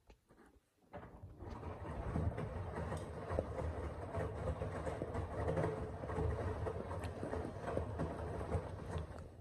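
Washing machine drum turning under motor power for about eight seconds, starting about a second in and stopping just before the end, with a steady low rumble.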